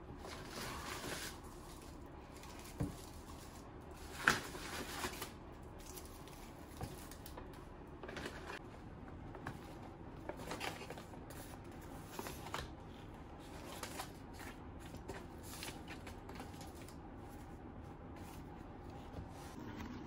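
Paper and plastic packaging rustling and crinkling as groceries are unpacked from a shopping bag by hand, with a few light knocks as items are set down on a stainless steel counter, two of them about three and four seconds in.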